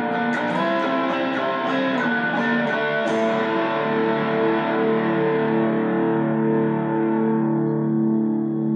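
Electric guitar played through effects: a run of separately picked notes for about three seconds, then a held chord left to ring, its brightness slowly dying away.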